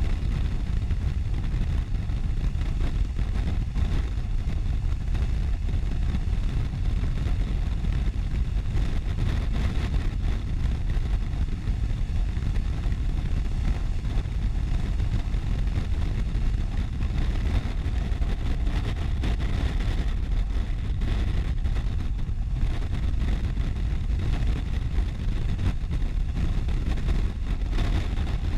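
Police motorcycle riding at motorway speed: a steady rush of wind over the camera's microphone, with the engine and road noise underneath.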